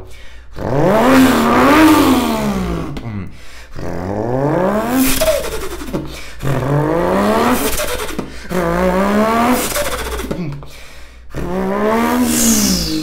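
A man's voice imitating a Ford Barra inline-six engine revving. It comes as five rising-and-falling rev sweeps with short breaks between them, and a brief high falling whistle near the end.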